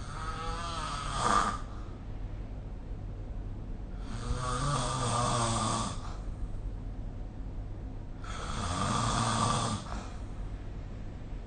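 A sleeping person snoring: three snores about four seconds apart, in a steady breathing rhythm, the first ending in a louder peak about a second in.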